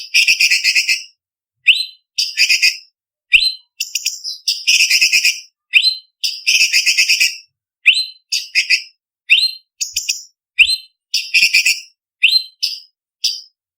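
Orange-bellied leafbird singing a rapid, varied song. Quick upward-sweeping whistled notes alternate with dense chattering phrases, each under a second long, with short silent gaps between them.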